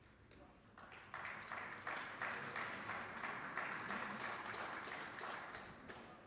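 Spectators applauding at the end of a rally. The clapping builds about a second in and fades away near the end.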